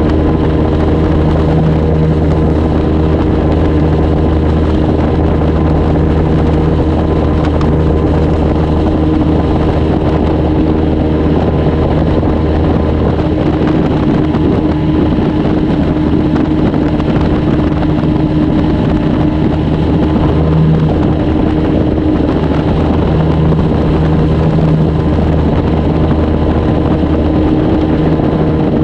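Outboard motor pushing a flats skiff at running speed, a loud steady drone. Its low hum dips for several seconds past the middle, then comes back near the end.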